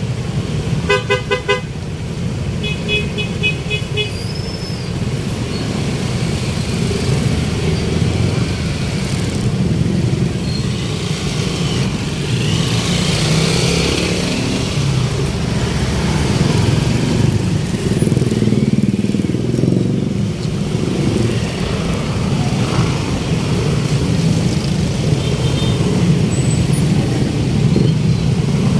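Road traffic: vehicle engines running in a steady low rumble, with a vehicle horn tooting in two quick strings of short beeps in the first few seconds, and a few fainter beeps near the end.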